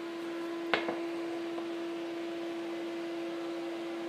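A steady, even hum at one pitch, with a single sharp knock about three-quarters of a second in.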